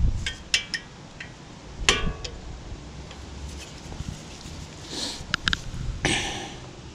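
Mallet striking a punch to drive out the pad retaining pin of a Brembo front brake caliper: a run of sharp metallic taps and clinks, with one harder ringing strike about two seconds in and more taps near the end.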